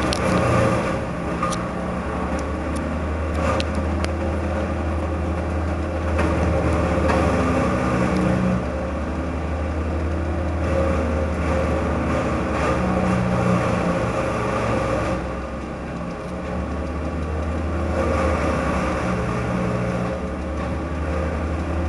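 Engine of tree-cutting machinery running steadily, its pitch and load rising and falling every few seconds as it works.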